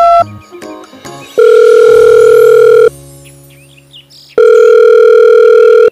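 Telephone ringback tone: two long, steady rings about a second and a half each, with a pause of about the same length between them, after the last keypad beep of a dialled number.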